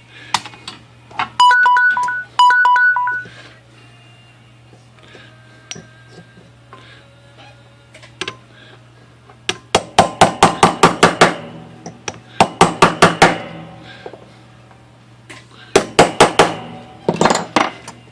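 Runs of rapid, light hammer blows on metal, about eight a second, as bent steel from a Royal typewriter is beaten back into shape against a steel block. Two short ringing tones sound near the start.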